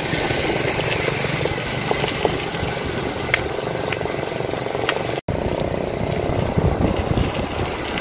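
Steady rushing noise of wind over the microphone and tyres on the road from a bicycle being ridden. It drops out for an instant a little past halfway.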